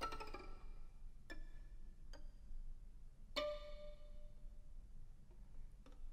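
A string quartet plucking sparse, separate notes: four plucks a second or so apart, each ringing and fading, the loudest about three and a half seconds in.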